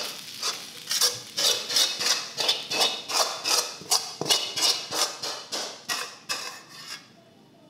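Metal spatula scraping and knocking against a wok about three times a second as the stir-fried noodles are scooped out; the clatter stops about seven seconds in.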